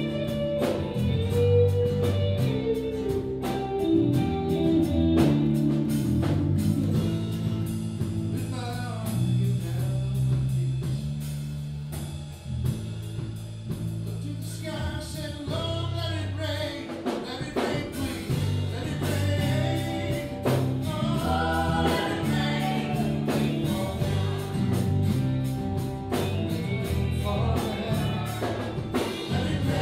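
Live band playing a song: electric and acoustic guitars and bass over drums keeping a steady beat, with a woman singing into a microphone.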